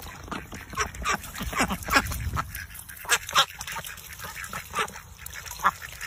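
Domestic white ducks quacking as they snap at a jet of water from a garden hose, with water splashing and many quick, sharp snapping clicks.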